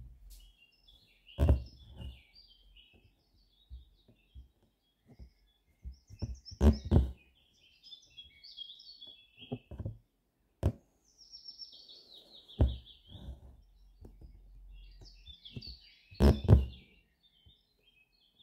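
Small birds chirping and twittering throughout. Every few seconds there is a sharp thump or tap as the needle and thread are pushed and pulled through fabric stretched taut in an embroidery hoop, the loudest a few seconds apart.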